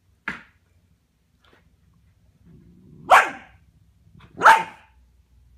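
Puppy barking: two loud barks about a second and a half apart, after a short, sharp, fainter sound near the start.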